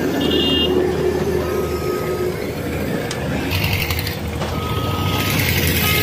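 Diesel engine of a Tata single-drum road roller running steadily, getting louder about halfway through, while a reversing alarm sounds three long beeps at uneven intervals.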